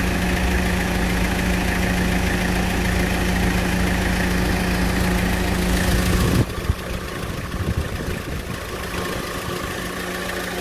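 Mitsubishi L300 van's engine idling with a steady hum. About six seconds in, the heavier low rumble cuts off suddenly and the sound goes quieter, while the steady hum carries on.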